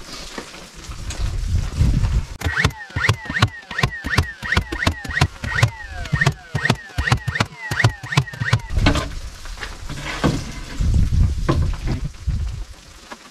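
Cordless nail gun firing nails through a plywood sheet into the framing in quick succession, about three shots a second, with the tool's motor whining down after each shot, then a few scattered shots. Wind rumbles on the microphone at the start and near the end.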